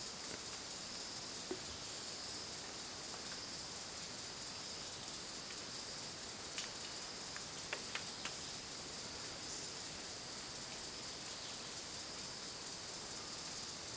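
Steady high-pitched chorus of insects, with a few faint clicks around the middle.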